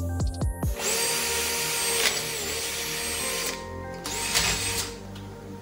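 Electric drill spinning a new sharp bit through metal: one run of about three seconds starting about a second in, its whine dipping briefly under load, then a short second burst. Background music plays underneath.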